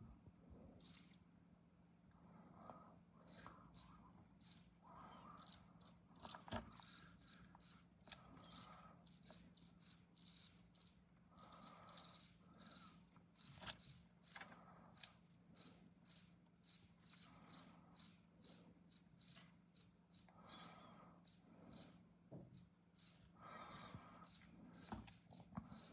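Insect chirping, typical of a cricket: short high-pitched chirps at one steady pitch, about two to three a second, starting about three seconds in. Fainter intermittent crunching of an animal chewing mealworms lies underneath.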